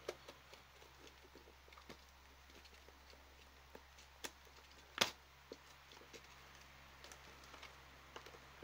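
Scattered light clicks and taps of a package being handled and opened by hand, with one sharper snap about five seconds in.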